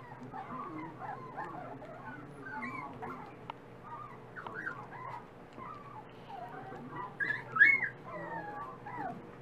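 Miniature dachshund puppies whimpering and squeaking in many short, high, sliding cries as they jostle at a shared food bowl, with one louder squeal a little past seven seconds in.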